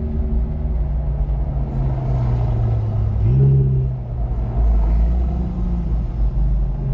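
Jaguar F-Type sports car's engine pulling at low revs, with a brief rise and swell in engine note a little after three seconds in, over a steady low rumble of road and wind noise.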